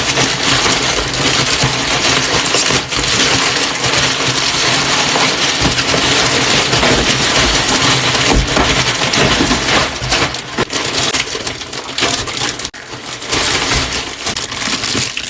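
Plastic mailer bags and packaging rustling and crinkling loudly as a parcel of clothes is torn open and unpacked, with many small crackles; the noise thins out after about ten seconds.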